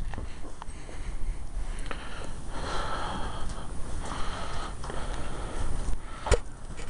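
Sheep snuffling and sniffing right at the microphone in two breathy bouts, over rustling and handling rumble, with one sharp knock near the end.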